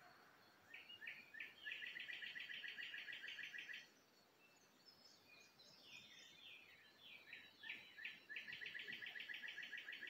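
A songbird singing twice: a few quick slurred notes leading into a fast, even trill of about eight notes a second, the first song ending near four seconds in and the second starting near six seconds. Fainter birdsong sounds in the background.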